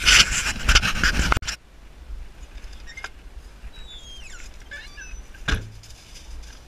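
A dog panting hard close to the microphone for the first second and a half, then quieter, with a few bird chirps and a single knock near the end.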